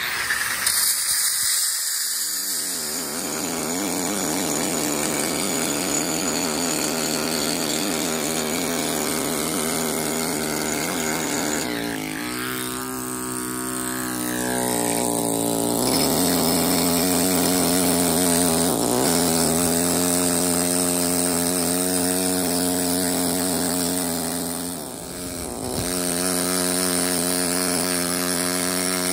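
Pneumatic carving hammer (hand machine) cutting granite, running steadily. It starts abruptly, its pitch shifts about twelve seconds in, and it eases off briefly about twenty-five seconds in.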